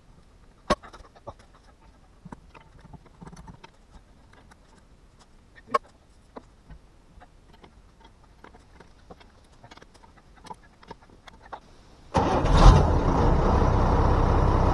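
Scattered light clicks and knocks, then, about 12 seconds in, the Unimog's diesel engine starts with a sudden loud burst and runs steadily.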